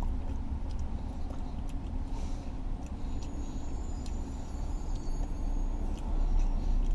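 A car engine idling, heard as a steady low rumble inside the cabin. It swells louder near the end, and there are light clicks and rustles of food being handled.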